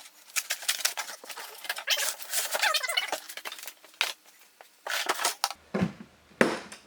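Hard blow-molded plastic tool case being turned around and opened by hand: a quick run of clicks, knocks and rattles, with rustling and a few brief squeaks of plastic.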